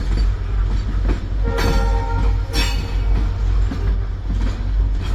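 Freight train hauled by WDG4 diesel locomotives passing, with a steady low rumble and wagon wheels clicking over rail joints. About a second and a half in, a locomotive horn sounds once for just over a second.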